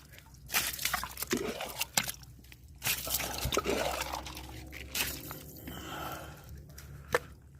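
Muddy water being scooped and scraped out of a hole around a leaking buried water line with a cup: irregular wet crunches, scrapes and splashes, with a sharp knock near the end.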